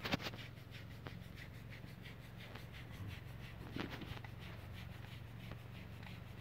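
Faint, irregular rubbing and scratching of sheep's wool close to the microphone, with a few louder scratches, over a low steady hum.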